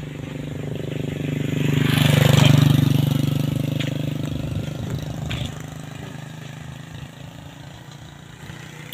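Motorcycle engine passing by at steady speed, swelling to its loudest about two and a half seconds in and then fading away.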